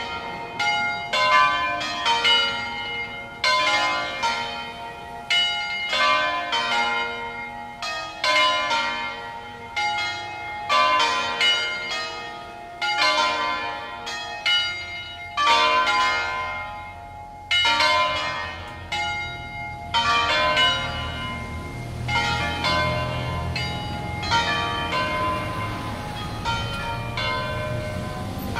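Peal of five church bells tuned to a B-flat major scale, swung full circle on their wheels, with their strokes overlapping in a fast, irregular clangour. After about twenty seconds the strokes thin out and grow fainter, and a low rumble comes up underneath.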